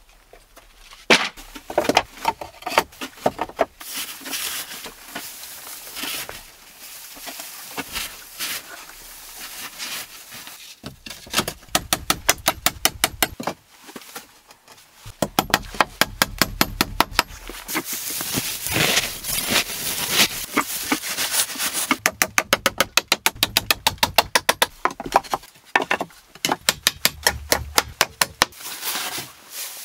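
Claw hammer driving nails into reclaimed pallet boards: quick runs of sharp strikes, about five a second, with short pauses between the runs.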